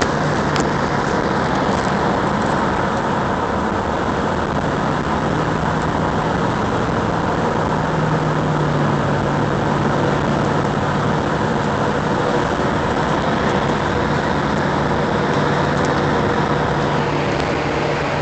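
Steady road and engine noise inside a vehicle's cabin while cruising at highway speed, with a constant low hum under it.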